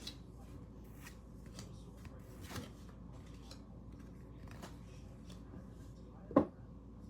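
Sports trading cards being handled, with light scattered rustles and clicks as cards are slid and flipped, and one much louder thump about six seconds in.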